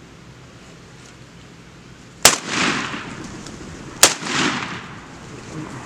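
Two shotgun shots less than two seconds apart, each a sharp crack followed by a brief echo.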